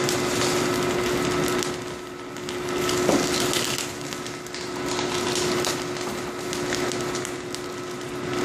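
Corn-meal puff extruder running: a steady motor hum under a continuous crackling hiss as the hot puffed corn tube is forced out of the heated die.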